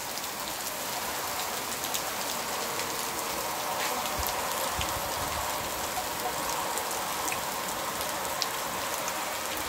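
Heavy tropical downpour falling steadily, a dense even hiss of rain with scattered sharp drop ticks close by, without thunder or wind.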